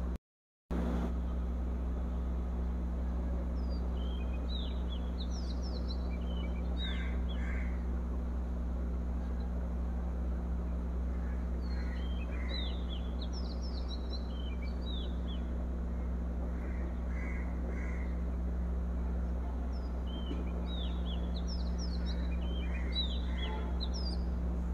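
Birds chirping in clusters of quick rising and falling notes, three bursts about eight seconds apart, over a steady low hum. The sound drops out for about half a second near the start.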